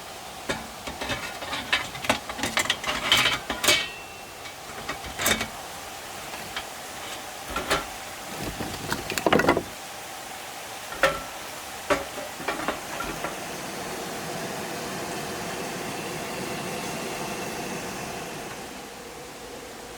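Clinks and knocks of camping cookware and utensils being handled. Near the end they give way to a steady hiss lasting about five seconds.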